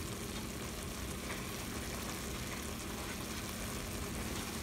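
Ground meat sizzling steadily as it fries in olive oil and butter in a pot.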